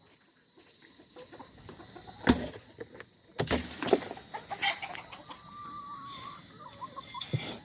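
Chickens clucking softly, with one faint wavering call in the middle, and a few scattered sharp knocks and taps.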